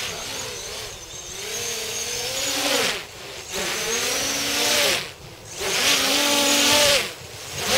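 V-tail quadcopter's four 2208 1100Kv brushless motors spinning 8x4.5 GemFan props on a 4-cell battery: a buzzing whine whose pitch rises and falls with throttle, with the sound dropping away sharply three times as the throttle is chopped and then coming back.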